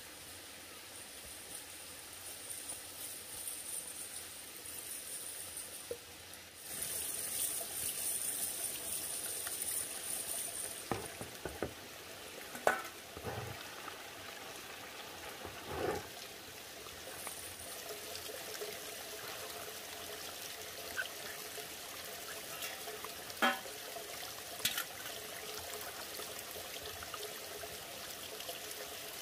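Water running from a spout into a plastic basin, with a few sharp knocks and splashes along the way.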